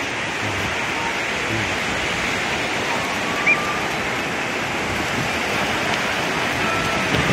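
Steady rush of ocean surf breaking and washing up on a sandy beach, with a faint brief high call or two in the distance.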